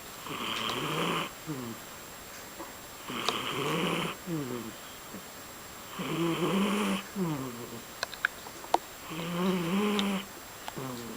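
A sleeping cat snoring: four snores about three seconds apart, each a raspy breath with a low tone that ends in short falling glides. A couple of sharp clicks come between the third and fourth snores.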